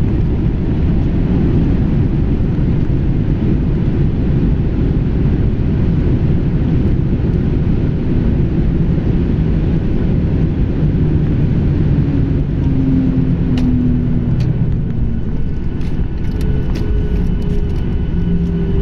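Cabin noise inside a Boeing 737-800 rolling on the ground after landing: a steady low rumble of the engines and wheels. A few faint steady tones come in about two-thirds of the way through, with light clicks near the end.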